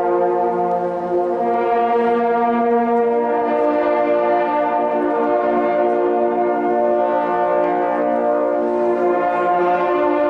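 Ensemble of hunting horns playing in a cathedral: held chords of several horns together, shifting to new chords every few seconds.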